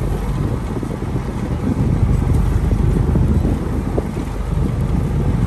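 Wind buffeting the microphone in an uneven low rumble, with a vehicle's engine running underneath as it moves across a pasture.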